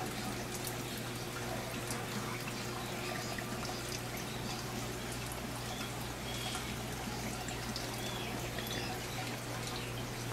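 Water trickling and splashing steadily in aquarium tanks and their filtration, over a constant low hum.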